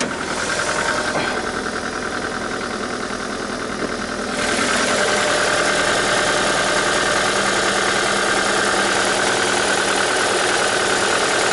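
Mitsubishi car engine idling unevenly, shaking and rattling, from a misfire on cylinder 3 (fault code P0303). It gets louder and brighter about four seconds in, then runs on steadily.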